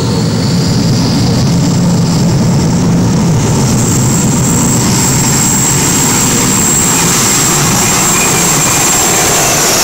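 Gas turbines of a Modified pulling tractor running flat out under load while it drags the weight sled: a loud, steady high-pitched whine over a dense low rumble.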